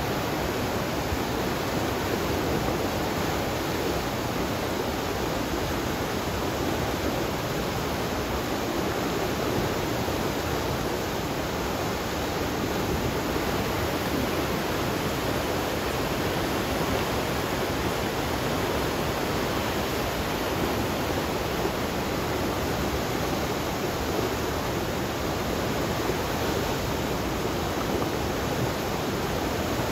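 River in flood after torrential rain, its muddy water rushing down a concrete-block channel and pouring over a low weir. It makes a steady, unbroken rush of water.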